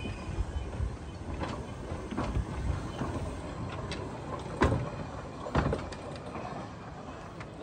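Quarry Hunslet narrow-gauge steam locomotive rolling slowly past at low speed, with a rumble of wheels on the rails and a few irregular clanks and knocks from its running gear. The loudest knock comes about four and a half seconds in, another a second later, and the sound dies down near the end.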